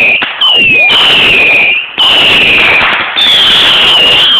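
Whistling firework missiles shooting off one after another from a missile-base launcher: a string of loud shrill whistles, each falling in pitch and lasting about a second, over a rushing hiss.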